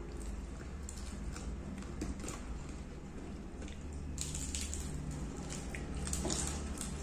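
Close mouth sounds of people eating fried fish by hand: wet chewing and lip smacks, heard as many short sharp clicks that grow busier from about four seconds in, over a steady low hum.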